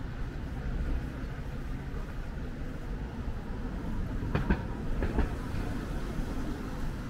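Steady low rumble of street noise, with two sharp clacks about four and a half and five seconds in.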